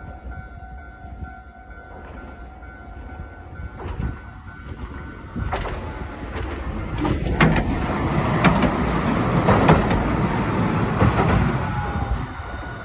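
Level-crossing alarm ringing steadily. From about five seconds in, a Hiroshima Electric Railway streetcar comes up and passes through the crossing, its rumble growing louder with a few sharp wheel clacks, while the alarm keeps ringing.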